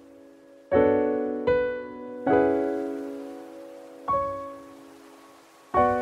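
Slow solo piano music: sparse notes and chords struck about five times, each left to ring and fade before the next.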